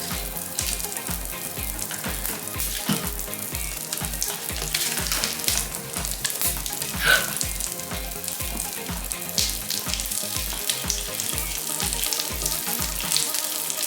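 Popping candy crackling in slime: a dense run of tiny scattered pops that sounds like sizzling, over background music with a steady low beat that stops near the end.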